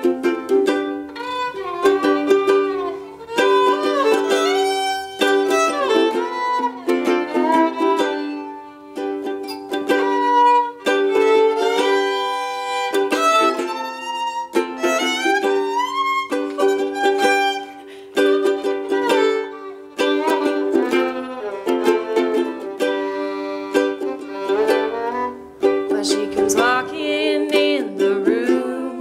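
Instrumental break: a fiddle plays the melody with sliding notes over a ukulele strumming steady chords.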